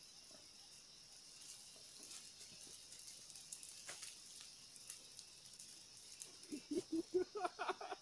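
Forest background of insects, a steady high-pitched hum with faint scattered ticks. About six seconds in, a quick run of short, low sounds comes in and is the loudest thing heard.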